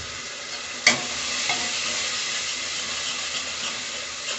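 Onion and tomato masala sizzling in hot mustard oil while it is stirred, with one sharp knock about a second in.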